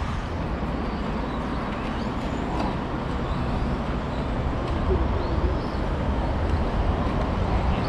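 Electric RC cars running on a track, their faint motor whines rising and falling over a steady rumble of outdoor noise.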